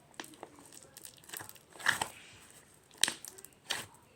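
Slime being squished and stretched in the hands, giving scattered short sticky clicks and crackles, the loudest about two and three seconds in.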